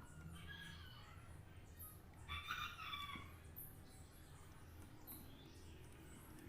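Faint bird calls in the background: a weaker pitched call near the start, then a louder one lasting about a second around the middle. Short, very high chirps repeat every second or so over a steady low hum.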